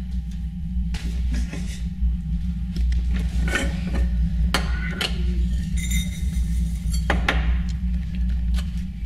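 Kitchen handling sounds: a glass storage jar and its metal lid knocked and set down, giving a few sharp clinks and clicks, one ringing briefly about six seconds in, over a steady low hum.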